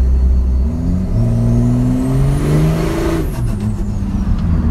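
Cummins turbo-diesel pickup engine accelerating, heard from inside the cab. The engine pitch climbs for about two seconds with a rising turbo whistle and a swelling rush of air, then falls away about three seconds in as the whistle winds down.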